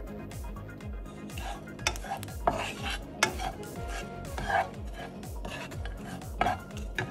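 Wooden spatula stirring and scraping grated coconut and whole spices around a nonstick pan as they dry-roast, with a string of sharp scrapes and taps against the pan, over background music with a steady beat.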